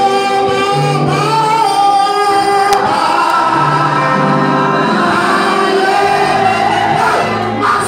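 Live gospel praise music: several voices singing together over instrumental accompaniment with low bass notes.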